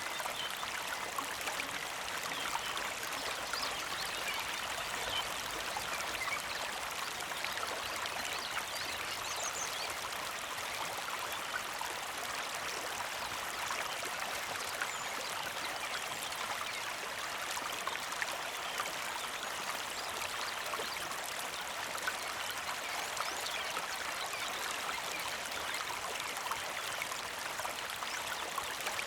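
Small mountain creek flowing steadily over stones, making a continuous gentle trickle.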